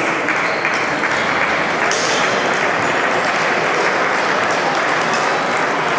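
Steady applause from the hall, with scattered sharp clicks of table tennis balls being played at the tables around.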